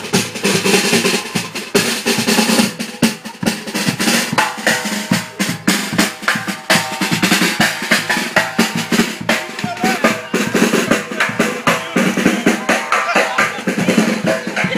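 Marching drums, bass and snare, beaten in a steady quick rhythm of strokes as the drummers walk.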